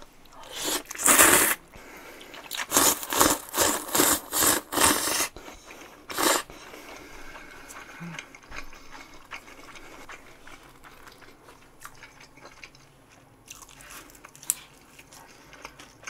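Cold buckwheat naengmyeon noodles slurped up: one long slurp about a second in, then a quick run of about six short slurps and one more, followed by quieter chewing.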